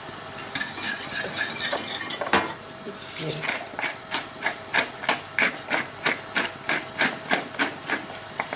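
Wire whisk beating a cream sauce in a stainless steel saucepan while butter is whisked in, the wires clinking and scraping against the pan. Scattered clinks at first, then quick regular strokes, about three a second, from about halfway through.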